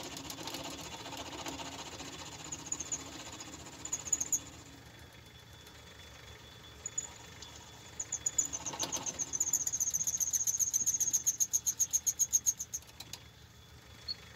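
Small metalworking lathe running while a turning tool cuts a small radius on the end of a model steam engine's connecting rod. From about eight seconds in, a high-pitched chirp repeats seven or eight times a second for about five seconds as the cut goes on.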